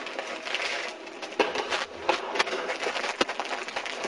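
Plastic bag of frozen mixed vegetables crinkling as it is handled, an uneven run of rustles and sharp crackles.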